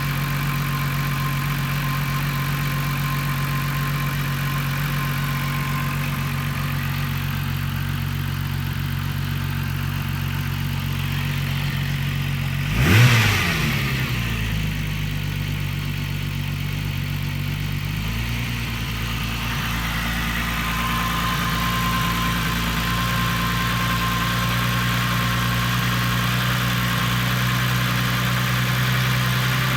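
Volkswagen Corrado engine idling roughly. About thirteen seconds in it revs briefly, rising and falling quickly, settles at a lower idle, then a few seconds later the idle jumps up and holds higher: the idle surge that the owner is trying to explain.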